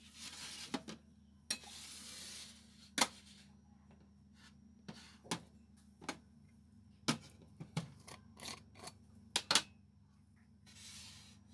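Small objects being handled at close range: a dozen or so sharp clicks and knocks, uneven in spacing, with short stretches of soft rustling near the start and near the end.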